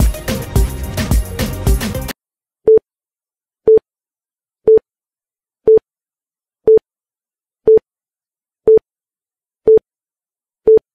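Background music with a beat cuts off about two seconds in. It is followed by a workout timer's beeps: nine short, identical single-tone beeps, one a second, with silence between them.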